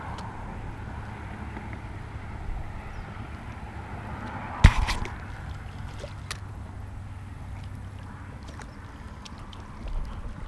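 A low, steady rumble of wind on the microphone with a single sharp knock about halfway through. Near the end comes water splashing as a hooked softshell turtle thrashes in the shallows at the bank.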